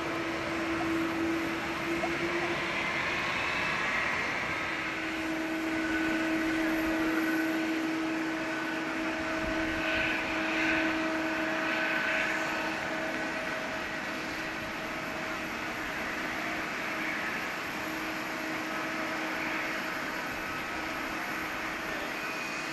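Jet airliner engines running, a steady whine of a few held tones over a rushing noise, growing a little louder in the middle.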